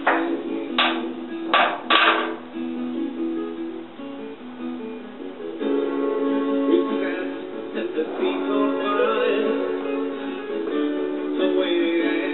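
Background music with plucked strings, with three short loud hits in the first two seconds.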